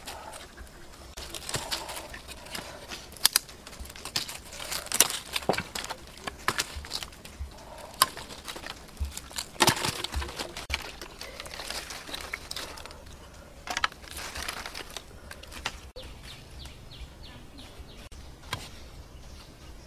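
Dry sticks and leaf litter crackling and snapping as they are handled, with scattered sharp cracks, the loudest around the middle, dying down near the end.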